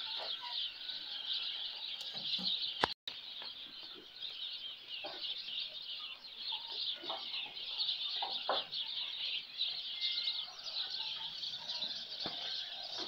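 Dense, continuous chirping of many small birds, with scattered chicken clucks. The sound cuts out for an instant about three seconds in.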